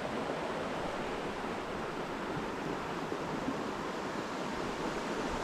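Steady rushing of river water running over rocks.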